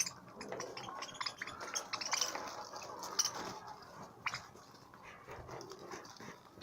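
Budgerigars chattering: a scatter of short chirps and clicks.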